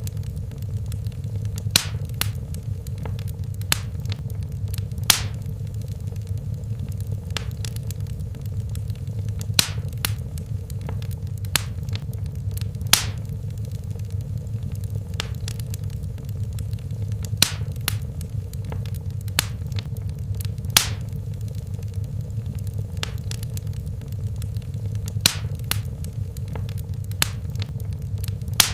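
Wood fire in a fireplace crackling, with sharp pops at irregular intervals, a dozen or so louder than the rest, over a steady low rumble.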